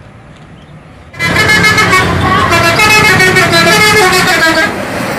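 Tour bus's multi-tone musical horn ('telolet') sounding a short stepping tune, starting suddenly about a second in and stopping near the end, over the bus's low engine rumble.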